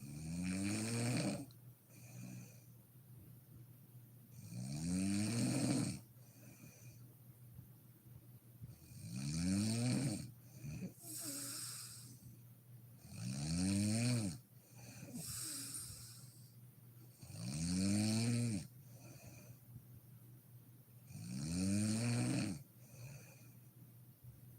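A sleeping woman snoring loudly and regularly, six snores about every four and a half seconds, the pitch of each arching up then down. A fainter breath out follows each snore.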